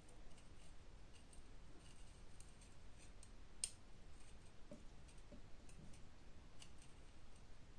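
Faint, scattered clicks and light taps of a steel vernier caliper against a chrome headlight rim as it is handled, with one sharper click about three and a half seconds in.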